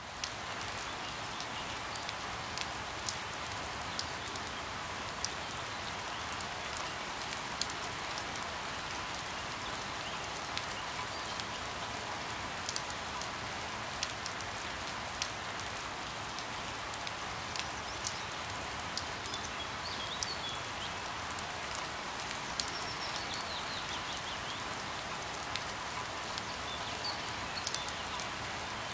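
Steady rain falling, with many scattered sharp ticks of drops landing close by.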